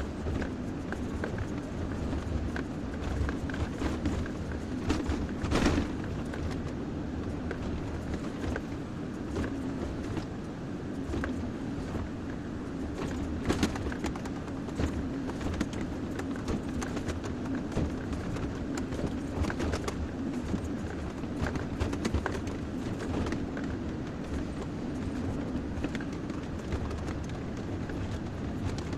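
Kobelco SK140XM excavator's diesel engine running steadily while digging and loading soil, with scattered sharp knocks and clanks from the working machine.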